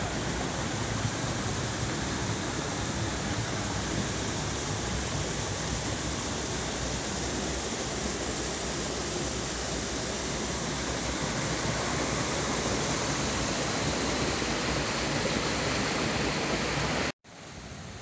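River water rushing over a small rocky cascade, a steady noise. It cuts off abruptly near the end and comes back much quieter.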